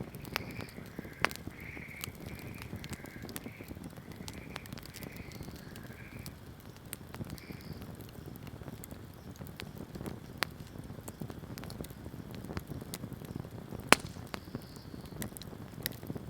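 Wood campfire burning, a steady low rush of flame with frequent sharp crackles and pops; the loudest pop comes about 14 seconds in.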